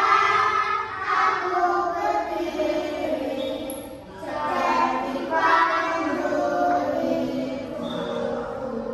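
A group of schoolchildren singing together in unison, a classroom song for learning multiplication, with a short break between phrases about four seconds in.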